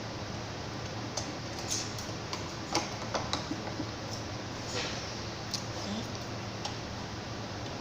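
Irregular small clicks and taps of metal sewing-machine parts being handled as the bobbin case is worked out of the machine.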